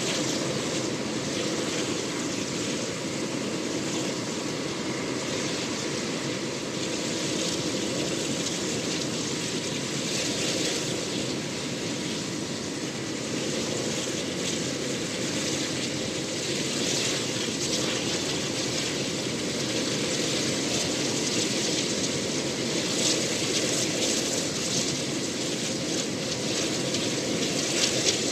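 UH-60 Black Hawk helicopter running on the ground with its main rotor turning: the steady noise of its twin turboshaft engines and rotor, with a thin steady whine.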